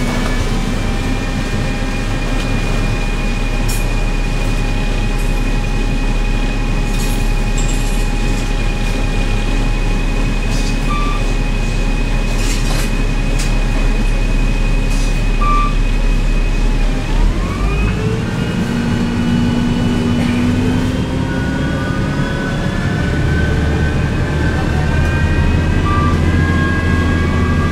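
Cabin sound of a 1998 New Flyer C40LF bus with a Cummins C Gas Plus engine converted to burn part hydrogen and part natural gas: a steady low rumble with a constant whine and light rattles. About two-thirds of the way through, the whine drops and then climbs again in several rising sweeps as the bus gathers speed.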